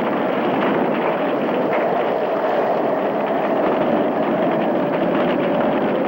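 Hurricane-force wind blowing hard and without letup: a dense rushing noise with a faint wavering howl in it.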